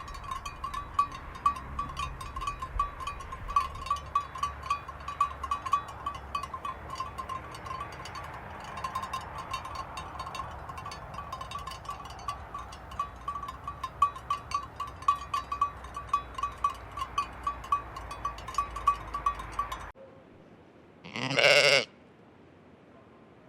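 Sheep bells clinking constantly and irregularly for about twenty seconds, then cutting off abruptly. Shortly after, a single loud sheep bleat lasting about a second.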